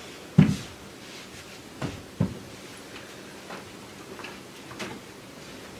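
A few scattered knocks and dull thumps of things being handled and someone moving about and getting up. The loudest thump comes about half a second in, two more come around two seconds in, and fainter taps follow, over quiet room tone.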